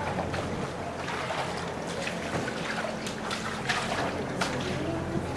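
Canal water splashing and trickling around a gondola under way, in short splashes, over a steady low hum.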